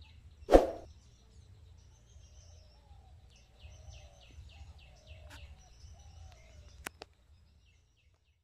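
A bird calling two quick runs of short, falling high notes, about five a second, over a low rumble. A single loud thump sounds about half a second in.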